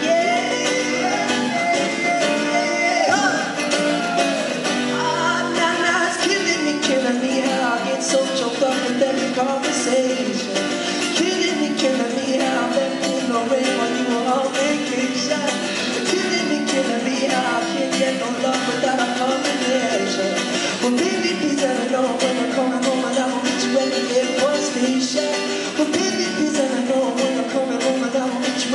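Live acoustic music: a man singing with acoustic guitar accompaniment.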